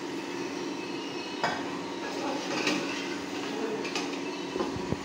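A steel ladle knocking and clinking against a steel cooking pot as broth is scooped out and the chicken stirred: one sharp knock about one and a half seconds in, then a few lighter clinks, over a steady hum.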